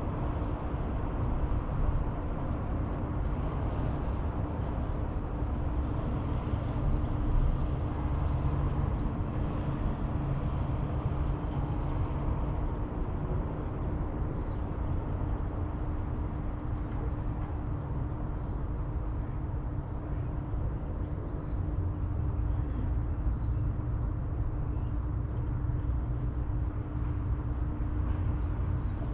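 Steady outdoor riverside ambience: a constant low rumble with a faint steady hum under it and occasional faint, short, high chirps.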